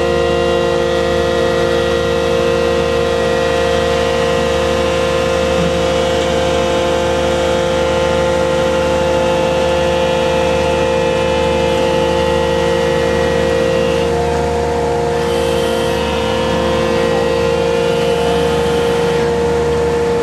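A fishing boat's onboard diesel machinery running steadily: a loud, even drone with a strong whining tone over it.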